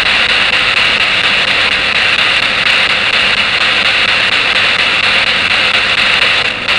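Spirit box (a radio scanner sweeping rapidly through stations) giving out a loud, steady static hiss, with a brief drop-out near the end.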